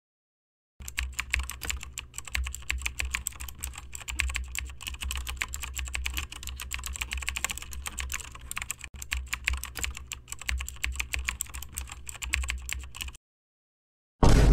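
Rapid keyboard typing: a dense run of irregular key clicks that starts about a second in and stops about a second before the end. A loud sound cuts in at the very end.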